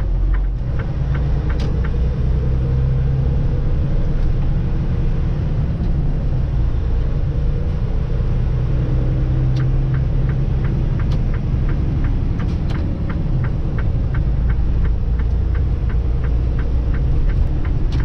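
Steady low rumble of a truck under way, heard from inside the cab, with a quick regular ticking, about three ticks a second, near the start and again through the second half.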